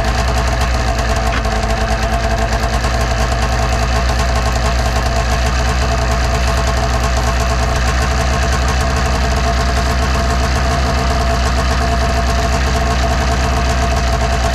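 1999 Arctic Cat ZR600's two-stroke twin engine idling steadily. The idle speed holds steady while carb cleaner is sprayed at the mag-side crank seal, showing the seal is not leaking air.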